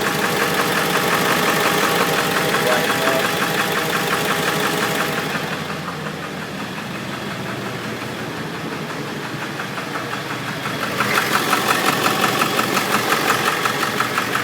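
2001 Ford 7.3-litre Power Stroke V8 turbo diesel idling with a fast, even knocking pulse, louder in the first few seconds and again over the last few. It is an odd knock from the passenger side, which the owner suspects may be a bad injector.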